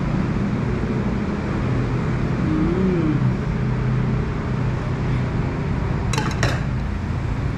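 Steady road traffic with a low engine hum running throughout. About six seconds in come a few quick clinks of a spoon against a soup bowl.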